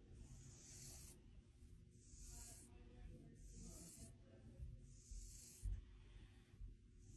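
Felt-tip marker drawn across bare skin, a series of faint scratchy strokes about every second and a half as a guitar outline and strings are drawn. A soft low bump comes a little past the middle.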